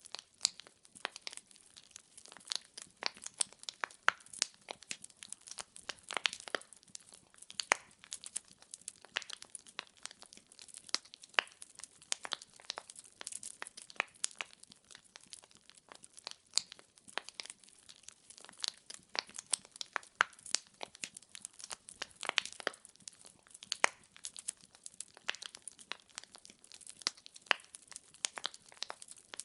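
Wood fire in a fireplace crackling steadily: dense, irregular sharp pops and snaps of burning logs over a faint hiss.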